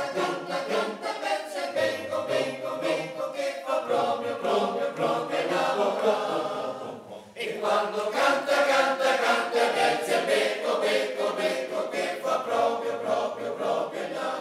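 Choral music: a choir singing sustained chords, with a brief dip about halfway through and a fade beginning at the very end.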